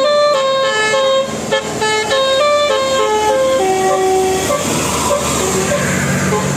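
Telolet bus horn playing a quick melody of short stepped notes, about three to four a second, then a few longer held notes. A low steady drone comes in near the end.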